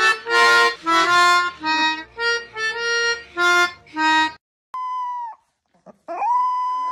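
Music with a melody of short, separate notes, cut off abruptly about four seconds in. Then a Rottweiler puppy howls: a short high howl, then a longer one held steady.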